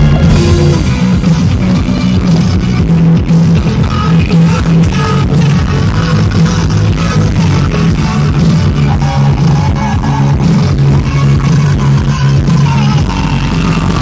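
Loud rock music, the soundtrack of a pyromusical fireworks show, with a steady bass line changing notes every second or so.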